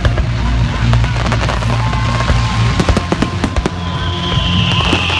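Fireworks going off in rapid bangs and crackles over music. About four seconds in, a falling whistle starts.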